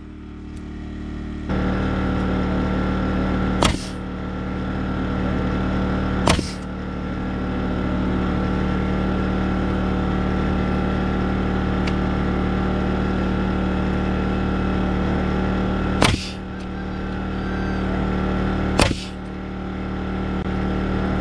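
Pneumatic framing nailer firing four times, each a sharp bang as a nail is driven into the 2x4 wall frame. Under it an air compressor runs steadily, kicking on about a second and a half in.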